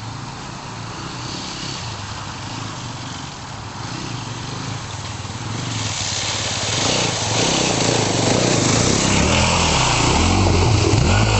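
An off-road vehicle's engine running, getting louder from about halfway through, with its revs rising and falling in the later part.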